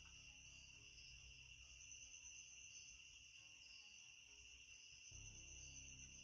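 Near silence: room tone with a faint, steady, high-pitched chirring and a low hum that fades for a few seconds and returns about five seconds in.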